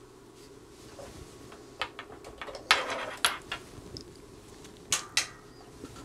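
Small metal clicks and clinks of coaxial connectors and adapters being handled and unscrewed. There is a quick cluster of them about three seconds in and two more single clicks near the end.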